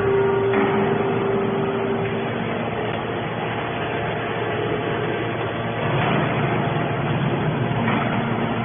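Hydraulic scrap metal baler running: steady machine noise, with a steady tone over it for the first two seconds or so.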